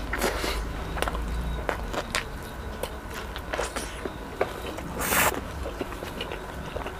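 Close-up eating sounds of fried chicken: wet chewing and lip smacking with scattered small clicks, and a louder bite about five seconds in.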